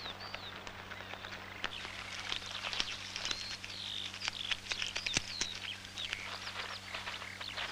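Small birds chirping, many short rising-and-falling calls, over frequent light crackles and a steady low hum.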